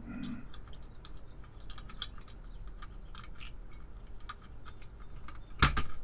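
Small clicks and taps of cable connectors being handled and pushed onto the header pins of an Atari 1050 floppy drive's circuit board, with one louder knock near the end.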